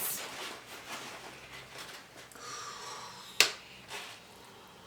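Faint rustling with one sharp click about three and a half seconds in, typical of food packaging being handled.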